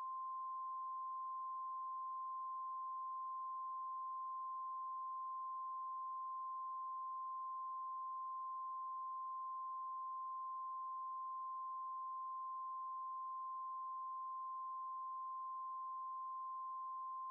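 A single steady electronic tone, held at one pitch and one level, like a test tone or a ringing in the ears.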